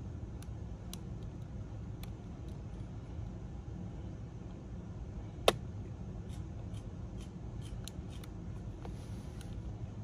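Small clicks and taps of a thin hand tool working a connector and parts inside an opened laptop, with one sharp, louder click about five and a half seconds in and a run of light ticks after it, over a steady low hum.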